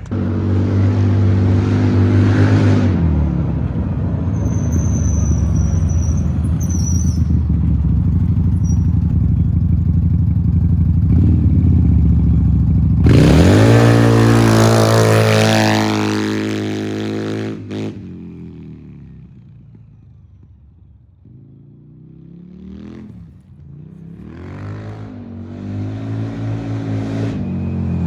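Off-road vehicle engine with an aftermarket slip-on exhaust, running and revving. It holds steady for a while, rises sharply in pitch about halfway through, then falls away and quiets for a few seconds before building up again with revs rising and falling.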